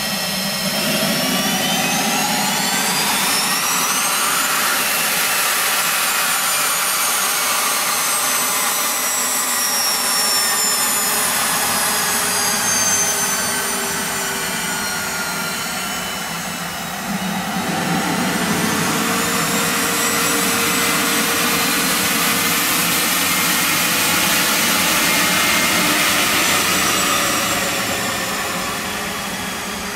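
Pilatus PC-24's twin Williams FJ44-4A turbofans running as the jet taxis: a high whine over a steady rush. The whine rises then falls in pitch, and does so again about halfway through.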